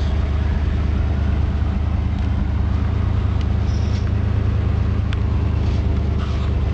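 Car engine running steadily, a constant low drone, with a few faint ticks over it.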